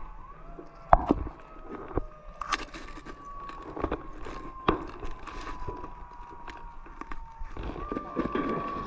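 Ride machinery whining steadily, its pitch slowly falling and stepping back up near the end, with scattered clicks and knocks.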